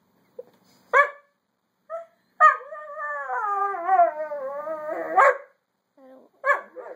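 Dog 'talking' back: a sharp bark about a second in, then a long wavering howl-like whine of about three seconds that ends in a bark, and another bark near the end.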